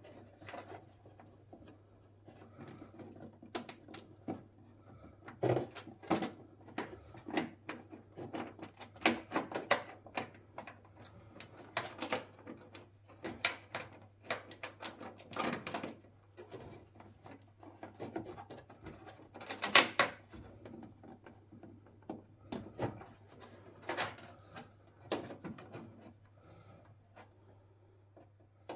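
Irregular clicks, taps and rattles of small metal parts and hand tools being handled while a gas bonnet strut's ball joint and washer are fitted to the car, over a steady low hum. The loudest knock comes about two-thirds of the way through.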